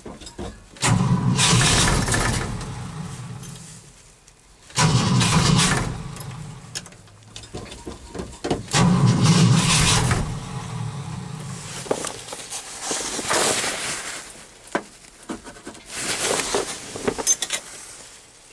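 A cold engine cranked on its starter again and again, in about five bursts of a couple of seconds each, each one starting suddenly and fading away without settling into a run. This is a hard cold start in subzero temperatures.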